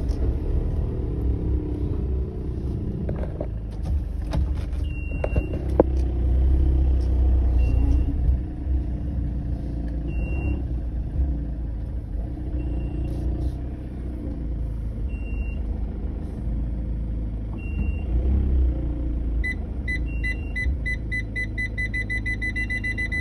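Van engine running low and steady while reversing slowly, with a few clicks a few seconds in and a short high beep every two or three seconds. About three-quarters of the way through, the parking sensors start beeping, faster and faster until the tone is almost continuous: the warning that the van is too close to the obstacle behind.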